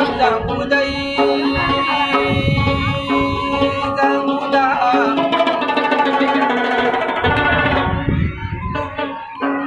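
Rabab, the Pashtun plucked lute, played solo: a plucked melody ringing over a steady low drone note.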